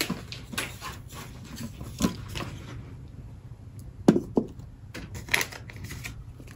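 Scattered light clicks and knocks of small objects being handled and set down on a desk, with two louder knocks about four seconds in.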